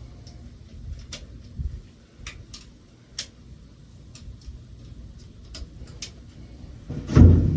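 Irregular sharp metal clicks and clinks of tools and parts being handled during repair work on a round baler, over a low background rumble, with one heavy thud near the end.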